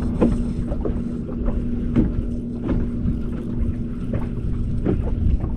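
A boat motor running with a steady hum over low rumbling noise, with a few light knocks.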